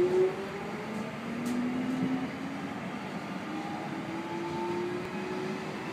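Jubilee line tube train (1996 Stock) accelerating, its traction motors whining in several tones that rise slowly in pitch over the rumble of the carriage.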